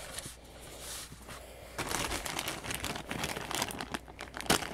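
Thin clear plastic bag crinkling as hands pick at it and pull it open. The crackling gets busier and louder about two seconds in.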